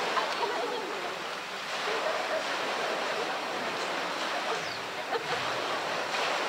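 Pool water sloshing and splashing as a polar bear wades and pushes a plastic barrel about in the water, with a couple of short sharp sounds, one near the start and one about five seconds in.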